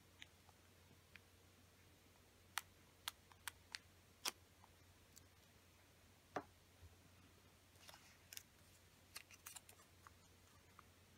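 Faint, sharp clicks and crackles of origami paper being handled, pressed and creased by fingers: a few spaced-out clicks, then a quicker run of them later on, over a quiet room.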